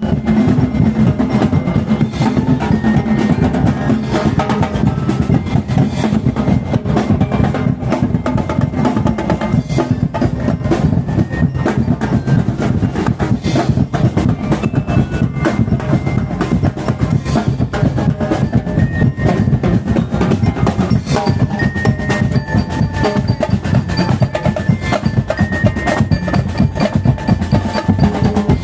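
Percussion music: fast, dense drumming with a continuous rush of strokes and a few ringing tones above.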